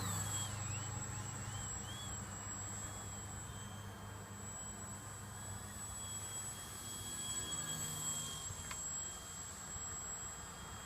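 Electric motor and propeller of a small RC foam plane, a Twisted Hobbys Crack Turbo Beaver, whining in flight. The thin high tone wavers up and down over the first few seconds as the throttle and distance change, then holds steady.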